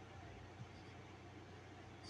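Near silence: room tone with a low steady hum and faint hiss.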